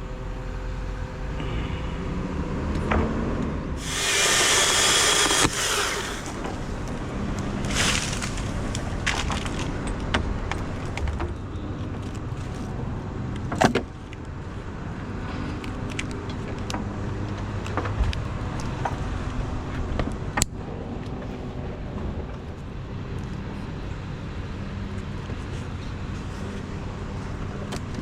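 A bucket truck's engine running steadily. About four seconds in comes a loud rushing noise lasting a second and a half, and scattered sharp knocks and clicks occur throughout.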